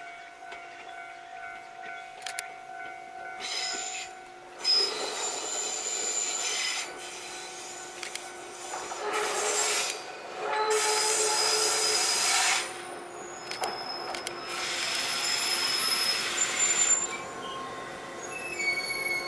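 KuMoHa 123 electric railcar pulling into the station and braking to a stop, with high, steady wheel and brake squeals over hissing rail noise, loudest as it draws up alongside the platform.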